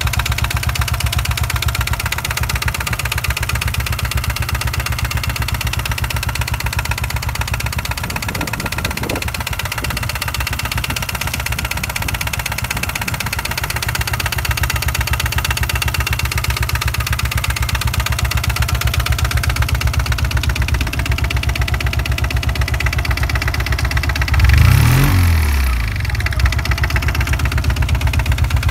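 Turbocharged 500 cc Lombardini diesel engine in a home-built Honda motorcycle idling steadily, with one short rev that rises and falls near the end.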